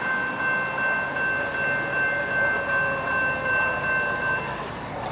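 Multi-chime air horn of an approaching Norfolk Southern GE ES40DC locomotive sounding one long blast of several steady tones at once. It cuts off about four and a half seconds in.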